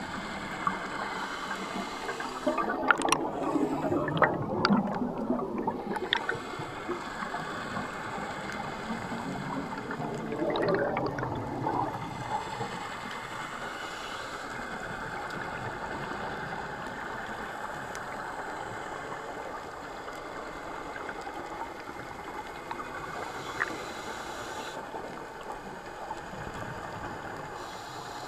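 Scuba diver's exhaled bubbles gurgling underwater in two bursts, about 3 seconds and 10 seconds in, over a steady underwater hiss.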